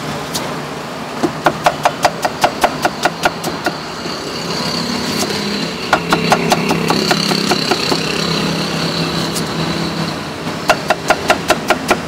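Cleaver chopping a cucumber on a wooden chopping block: three runs of quick, even knocks, about five a second, as the blade strikes the board. A steady engine-like hum runs underneath.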